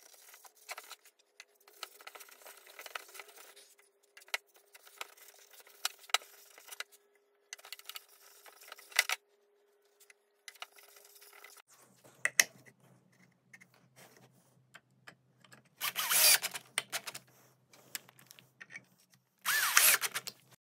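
Faint handling clicks and rubbing, then a drill driver running in two short bursts near the end, driving screws that fix a metal bottle opener to the wooden crate.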